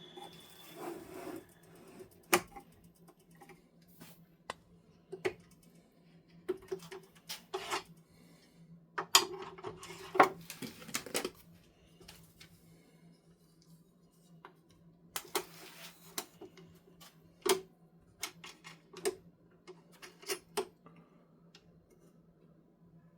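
Metal tool handling at a Tormek T-8 sharpening machine, with a skew chisel and its jig knocking and clicking: scattered sharp clicks and clinks at uneven spacing, a louder run of clatters about nine to eleven seconds in. A steady low hum runs underneath.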